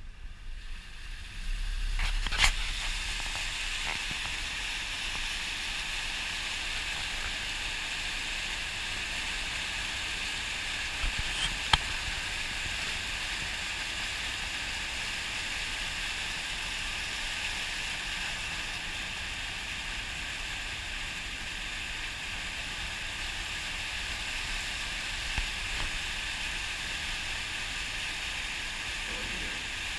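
Floodwater rushing and splashing steadily along the side of a pickup truck as it pushes a bow wave through deep water, heard through an open side window, with a low engine rumble underneath. The rush comes in about two seconds in, and a couple of short clicks stand out.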